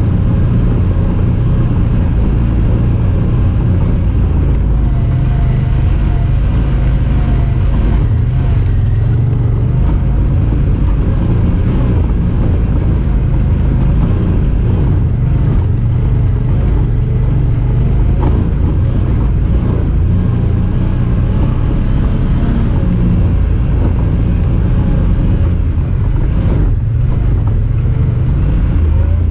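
Honda Talon 1000R side-by-side's parallel-twin engine and drivetrain running steadily under way, a dense low drone that stays at an even level.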